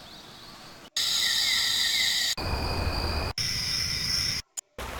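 Nature ambience samples from Lumion's sound library previewed one after another, each starting and cutting off abruptly. Several carry a steady high insect chirring.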